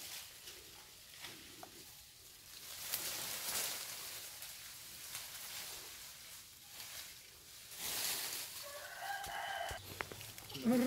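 A rooster crowing once in the distance about nine seconds in, one drawn-out pitched call, over two stretches of rustling noise.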